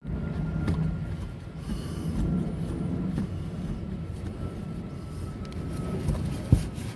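Steady low rumble of background noise, with one sharp knock about six and a half seconds in.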